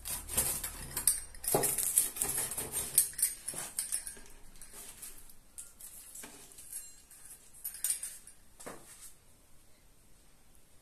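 Metal pizza-cutter wheel cutting through crisp pan-fried katmer pastry on a wooden board: crackling and scraping, busiest in the first few seconds, then sparser and fainter.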